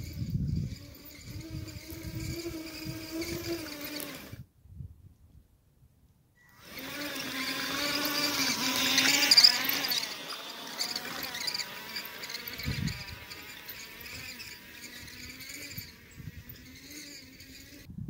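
Electric drive motor and gearbox of a radio-controlled tracked snowcat whining as it drives through snow. It cuts out for about two seconds a little over four seconds in, then comes back louder with the pitch wavering as it pulls close, and eases off toward the end. A few low thumps come near the start and again about thirteen seconds in.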